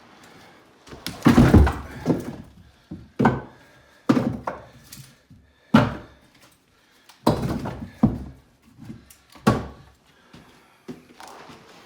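Split firewood logs knocking and thudding as they are set down one after another on a pile, about eight or nine hollow wooden thunks at uneven intervals. The heaviest thunk comes about a second and a half in.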